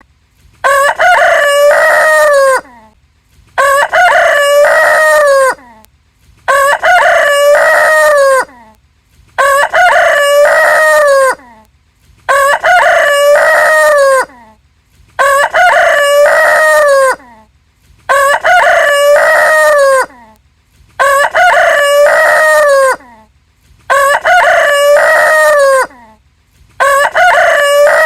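Rooster crowing over and over: about ten identical cock-a-doodle-doos, each about two seconds long, repeating roughly every three seconds with short silent gaps.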